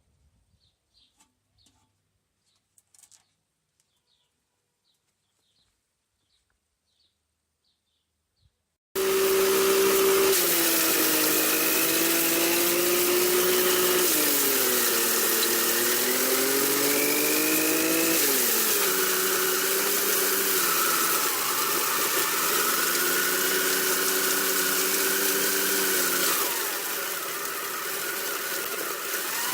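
Near silence with faint chirps about every two-thirds of a second. About nine seconds in, a loud motor sound cuts in abruptly and runs on, its pitch rising and falling several times before it eases off a little near the end.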